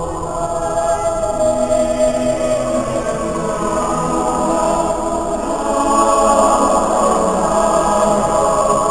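Choir singing a Welsh choral song in held, sustained chords, swelling louder about two-thirds of the way through, with the reverberation of a church.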